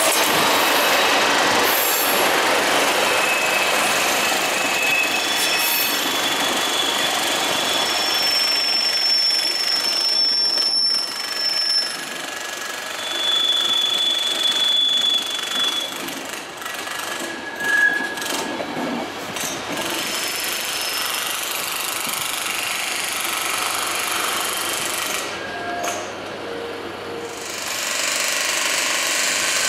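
Czech Railways class 242 electric locomotive and its passenger coaches rolling past close by: a steady rumble and clatter of wheels on rail, with several brief high squeals from the wheels.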